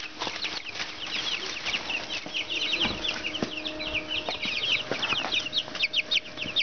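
A brood of three-week-old Black Australorp chicks peeping without pause: many short, high, falling peeps overlapping, over a faint steady hum.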